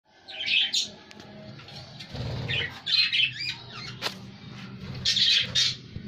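Budgerigars chirping and chattering in three short bursts of quick high warbles, over a steady low hum. A single sharp click comes about two-thirds of the way through.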